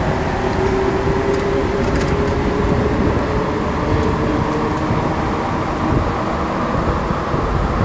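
Montreal Metro Azur train running between stations, heard from inside the car: a steady rumble from its rubber-tyred running gear, with a steady whine running through it.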